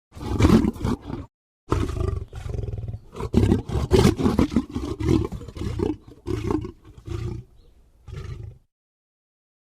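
A large wild animal growling and roaring in a series of short, rough bursts, broken by abrupt silent gaps about a second in and near the end.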